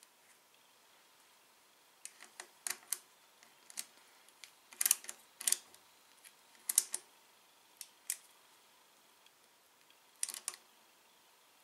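Ratcheting box-end wrench clicking in short, irregular bursts as it tightens the brake hose bolt on a motorcycle's front brake master cylinder. The clicks start about two seconds in and stop shortly before the end.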